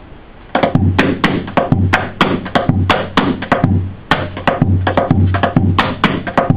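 Hula percussion on an ipu gourd drum: a quick rhythm of sharp slapped strikes over deep low thumps, starting about half a second in.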